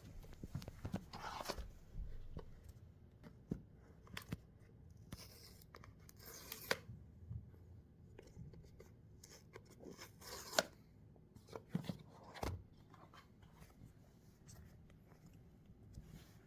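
Unboxing a Samsung Galaxy S25 Ultra: the packaging being torn open and handled, with faint rustling, tearing and scattered clicks and taps of cardboard and paper, in short spurts throughout.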